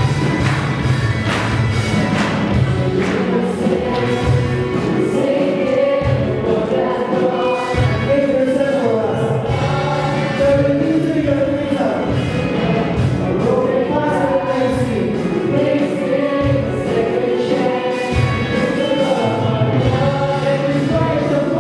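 Gospel praise song with a choir singing over a steady beat.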